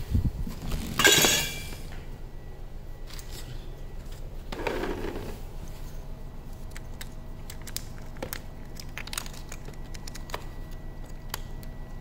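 Handling noises of a Makita cordless rotary hammer: a loud rustle and knock about a second in, a scrape around the middle, then a run of small plastic clicks and taps as a small plastic unit is fitted into a slot on the tool's body.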